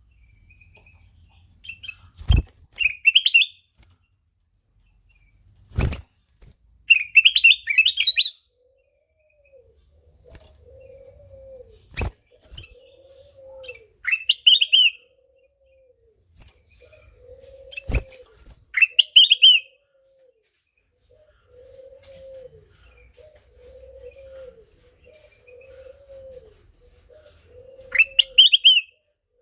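A kutilang emas (bulbul) singing short, bright, rising phrases every few seconds. Behind it runs a steady high insect drone, and from about a third of the way in, a low call repeats about once a second, like a dove cooing. A few sharp clicks come in between.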